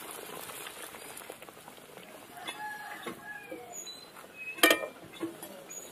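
A puri deep-frying in hot oil in a kadai, the oil sizzling and bubbling steadily. A hen clucks a few times a little after two seconds in, and a single sharp clack comes about three-quarters of the way through.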